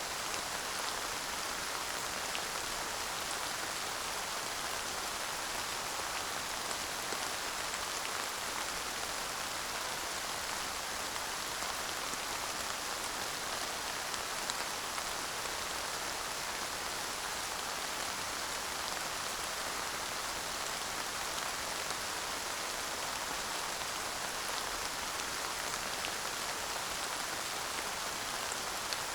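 Steady light rain falling, an even hiss of many small drops pattering on surfaces, with no thunder.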